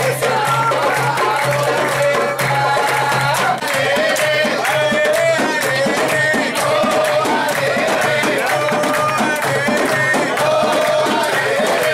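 Men singing an Egyptian folk song over a large hand-held frame drum beating a steady rhythm, with people clapping along.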